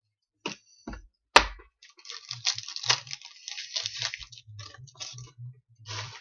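A sharp knock about a second and a half in, then several seconds of crinkling and crackling: a foil trading-card pack wrapper being handled and torn open.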